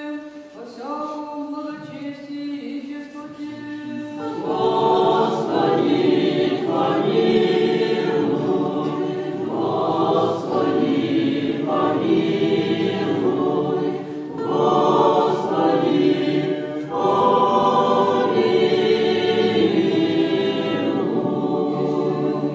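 Orthodox litany: a boy's voice chants alone, then about four seconds in a choir takes over, singing in several long phrases with short breaks between them.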